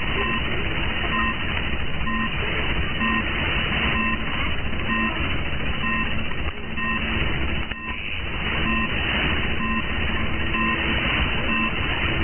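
Radio static from a Perseus receiver tuned in upper sideband to 1669 kHz, with faint whistling tones at several pitches that come and go in short beeps about once a second. The noise dips briefly about two-thirds of the way through.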